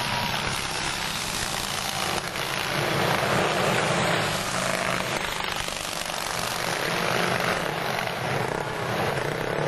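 Engines of pre-1910 board track racing motorcycles running flat out as the bikes circle the dirt track, a continuous engine drone that swells as riders go by, about three seconds in and again near the end.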